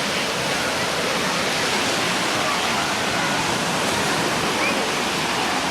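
Steady rush of water, with faint distant voices now and then.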